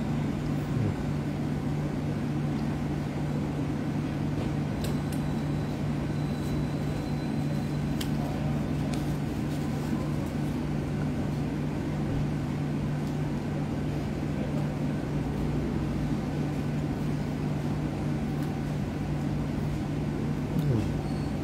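Steady low mechanical hum of a running appliance, with one constant low tone, and a few faint clicks over it.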